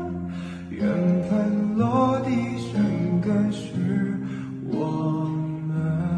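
Music: a slow Chinese pop ballad with plucked and strummed acoustic guitar.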